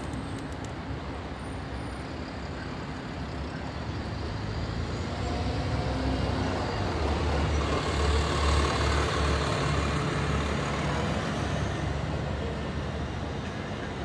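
Road traffic with a heavy vehicle passing: a low engine rumble that swells to its loudest about midway and then fades.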